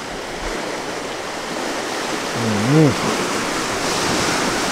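Steady rush of sea water and surf at the shore. A short voiced sound, rising then falling in pitch, comes about two and a half seconds in.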